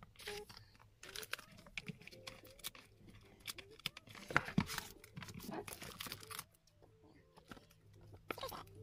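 Crinkling and rustling of a plastic sleeve and stiff paper as packaged merchandise is handled and lifted from its box, with one sharper tap about four and a half seconds in.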